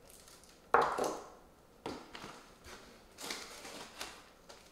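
Handling noise from vacuum-sealed packs of frozen meat being taken from a delivery box and set down on a countertop. There is a sharp knock about a second in, then softer knocks and plastic rustling.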